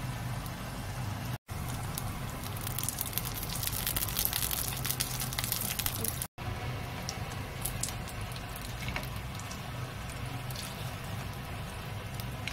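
Gyoza frying in oil in a frying pan, sizzling and crackling as their bottoms crisp in the last stage of pan-frying, with a steady low hum underneath. The crackle is densest in the middle, and the sound cuts out briefly twice.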